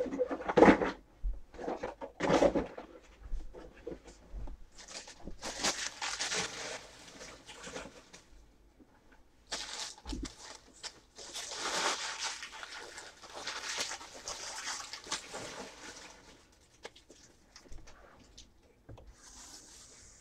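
Handling noises from setting things up on a table: a few knocks in the first couple of seconds, then long stretches of rustling with scattered clicks.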